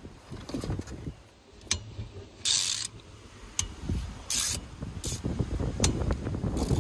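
Hand ratchet clicking in short runs while bolts on an engine's cylinders are undone, with irregular small metallic ticks of tool on bolt. Two brief, louder rasping bursts come about two and a half and four and a half seconds in.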